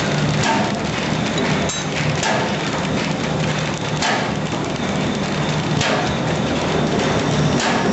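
Automatic paper bag making machine running: a loud, continuous mechanical clatter from its rollers and mechanism, with a knock recurring about once a second over a pulsing low hum.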